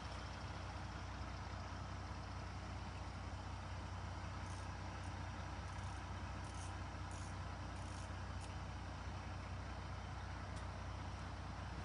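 JR Shikoku Railway Hobby Train, a KiHa 32 diesel railcar, standing with its engine idling: a steady low hum.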